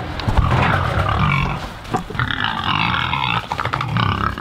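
Pigs grunting, with a louder, higher-pitched call lasting about a second from about two seconds in, and a shorter one near the end.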